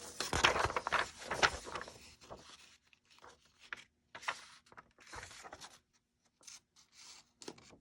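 Paper rustling and crinkling as pieces of collage paper are handled and sorted: dense for the first couple of seconds, then scattered short rustles with pauses between.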